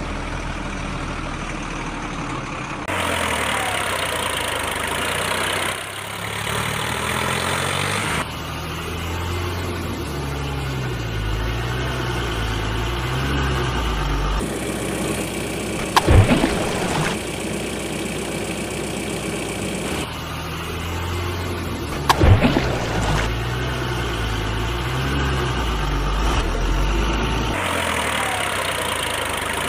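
Dubbed-in vehicle engine sound effects: a motor idling and running in edited stretches that switch abruptly every few seconds, with two short loud falling sounds in the second half.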